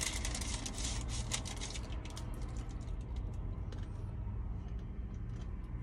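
Plastic taco sauce packet crinkling and being torn open by hand: a quick run of crackles in the first couple of seconds, then softer scattered rustles. A steady low hum of the car's cabin runs underneath.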